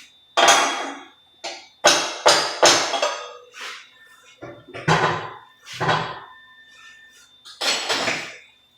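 Hammer striking steel: about nine irregular blows, each with a short metallic ring, over a faint steady high whine.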